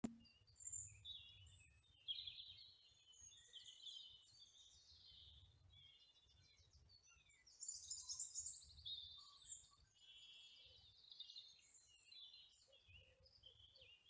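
Faint outdoor birdsong: a continuous run of high chirps and trills from small songbirds, busiest about eight seconds in, over a low rumble of wind.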